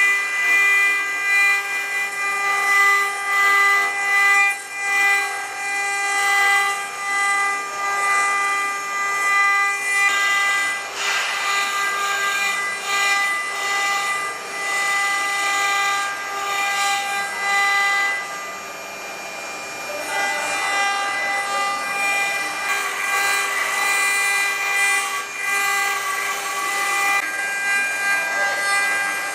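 CNC router spindles milling a relief into metal pipe: a steady high whine with a row of evenly spaced overtones, over the hiss of the cutters. The whine drops away for a couple of seconds about two-thirds of the way through, then returns.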